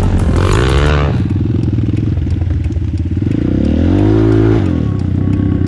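ATV engine running hard, revving up and back down twice: once right at the start and again about three to four and a half seconds in.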